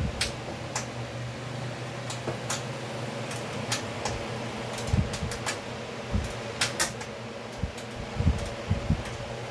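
Steady electric fan hum with a low droning tone, broken by scattered small clicks and light knocks at irregular intervals.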